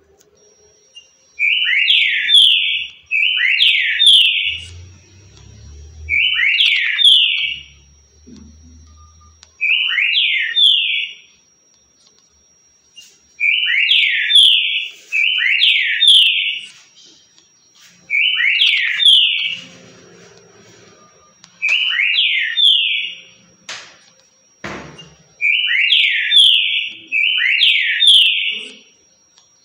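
Green-winged saltator (trinca-ferro) singing its "currucutil" song: a loud, short whistled phrase of about a second, repeated about ten times, often in quick pairs with pauses of a few seconds between. A single sharp knock sounds about 25 seconds in.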